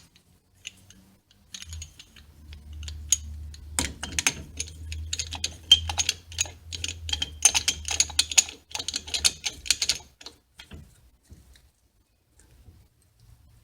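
Brake caliper piston compression tool being worked to push the dual caliper pistons the last bit further in: a dense run of quick metallic clicks and rattles from about four to ten seconds in, with a few scattered clicks before it. The clicks stop after about ten seconds.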